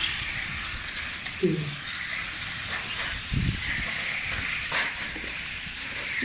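High-pitched whine of electric RC touring cars' brushless motors racing around the track, rising and falling as the cars accelerate and brake through the corners.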